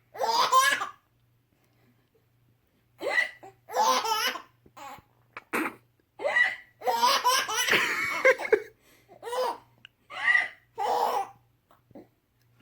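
A baby hiccuping and laughing: a string of short, high, pitched vocal bursts, with a longer run of laughter near the middle.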